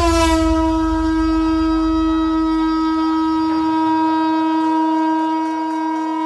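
One long blown note of a horn-like wind instrument, held steady at a single pitch, with a deep low rumble under it that fades out about halfway through.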